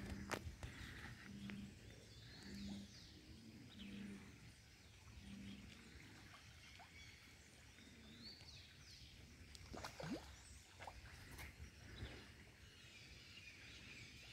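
Quiet pondside ambience: a faint low hoot repeating five times over the first six seconds, a few bird chirps, and scattered small pops and splashes as fish take floating feed pellets at the surface, mostly near the end.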